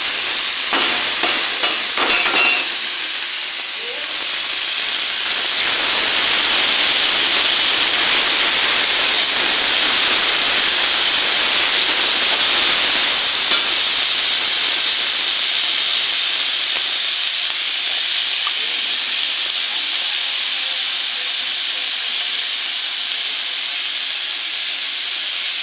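Boiled ghetkol leaves frying in a steel wok: a loud, steady sizzling hiss. In the first couple of seconds there are a few sharp clatters of metal on the pan.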